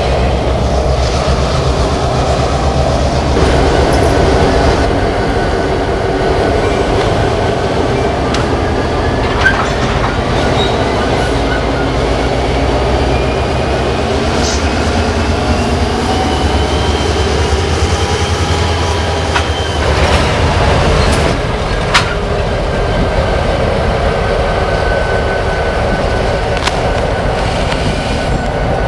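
Freight train with CSX diesel locomotives moving at low speed: a steady rumble of engines and rolling railcars, with faint wheel squeal and a few sharp metallic clanks.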